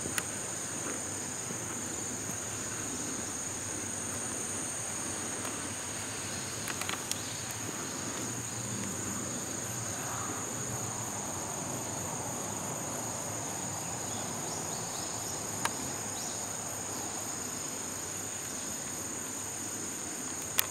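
Insects singing in a steady, high-pitched continuous trill, with an occasional brief click.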